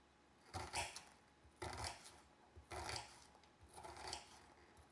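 Knife chopping a yellow onion into small cubes on a chopping board: four strokes about a second apart.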